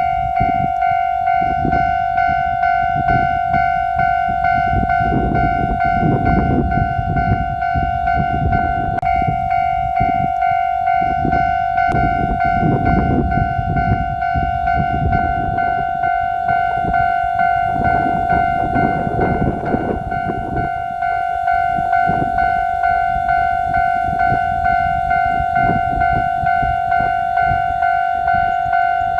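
Japanese railway level-crossing warning bell ringing in a steady, repeated clang while an electric train rumbles across the crossing, its wheels clattering over the rails; the train sound dies away about 21 seconds in and the bell keeps ringing.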